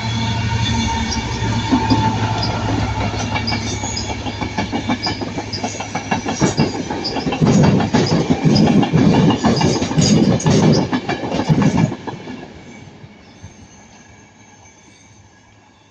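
A Transport for Wales train hauled by a class 67 diesel locomotive passes close by. The locomotive's engine drones steadily at first, then the coaches' wheels clatter rhythmically over the rail joints. The clatter cuts off about twelve seconds in and the noise fades away.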